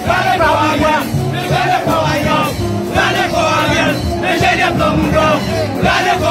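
A crowd singing and chanting together over music, in repeated sung phrases about a second long.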